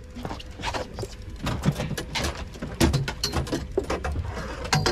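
Fishing reels being cranked and rods and gear knocking about on the boat: a rapid, irregular run of clicks and knocks over a low steady rumble.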